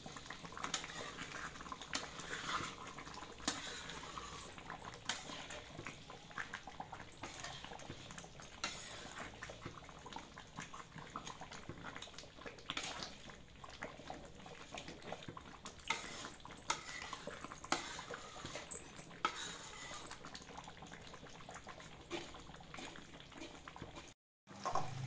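Thick coconut-milk beef curry simmering in a wok, with irregular bubbling pops and clicks as a metal spatula stirs and scrapes the pan. The coconut milk has reduced to the stage where the oil separates out.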